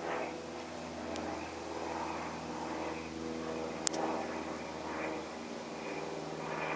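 Cessna single-engine propeller plane flying overhead, its engine and propeller giving a steady drone. A sharp click about four seconds in.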